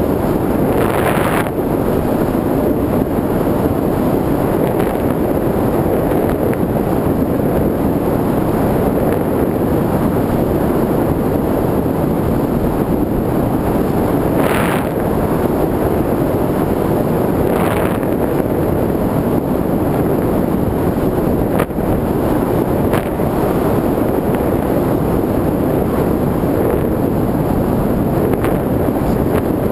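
Steady rush of wind over the onboard camera of a foam model aeroplane in flight. A few brief hissing swells and, later, a couple of sharp clicks.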